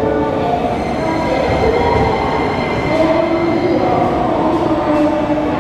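JR Kyushu 885 series electric train pulling away from the platform. Its drive gives a whine of several tones that climb in pitch as it gathers speed, over a steady rumble of wheels on the rails.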